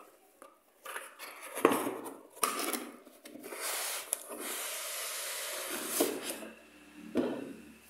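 Dense foam packing insert being worked out of a cardboard toy box: a few knocks and taps, then a long scraping rub of foam against cardboard for a couple of seconds, then more knocks as the block comes free.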